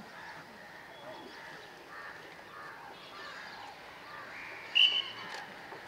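Low murmur of voices, with one brief, loud, shrill sound about five seconds in.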